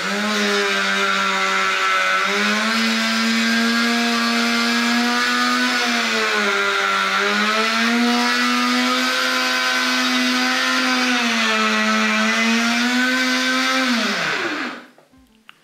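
Model railway turntable's electric drive motor and gearing whining steadily as the deck turns with a locomotive on it. The pitch dips briefly a few times, then falls away as the motor winds down and stops near the end.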